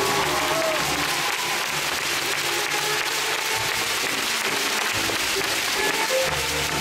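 Audience applauding steadily for a finished uneven-bars routine, with music from elsewhere in the hall faint underneath.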